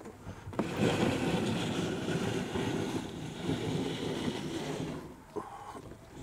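Teardrop camper's galley hatch door sliding sideways along its hurricane hinge: a continuous scraping as the door's edge runs along the hinge rail, stopping about five seconds in, followed by a short knock.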